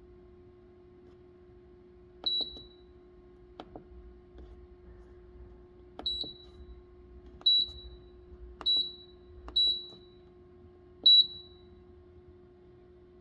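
Control-panel keypad of a CEM MARS 5 microwave digestion system beeping as keys are pressed: six short high beeps at uneven intervals, each with a soft key click, and one click with no beep about three and a half seconds in. A steady low hum runs underneath.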